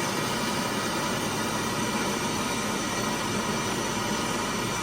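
Blowtorch flame burning with a steady, even hiss, heating a broken-off brass fitting to loosen it for extraction.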